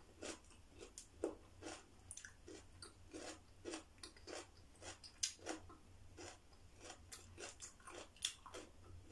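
A person chewing raw cucumber: faint, regular crunches, about two or three a second.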